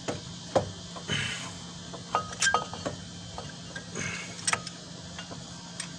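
Scattered metallic clicks and clinks, a few with a brief ringing, from a disc brake caliper and its new brake pads and clips being handled and fitted together.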